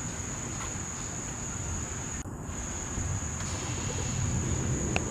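A steady high-pitched insect trill, like a cricket or katydid, that drops out once for a moment about two seconds in, over a continuous low rumble.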